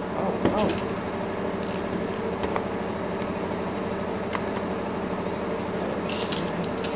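Steady low room hum, with scattered light clicks and rustles of microphone-stand parts being handled.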